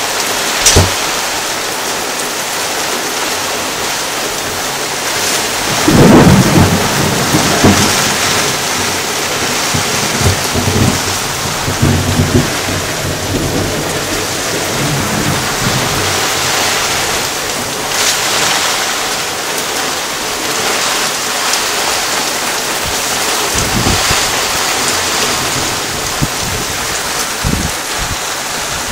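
Thunderstorm: steady rain falling throughout, with a rumble of thunder rolling in about six seconds in and dying away over several seconds. Shorter low rumbles come later.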